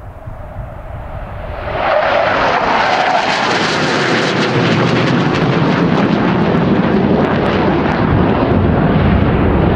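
Jet fighter fly-by: the engine noise swells over about two seconds into a loud, steady roar with a crackling edge.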